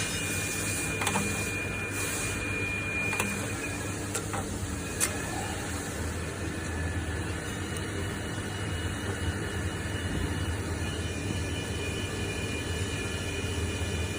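A few sharp metallic clicks in the first five seconds from a hand-operated cold welding machine worked during a test weld, over a steady low mechanical hum.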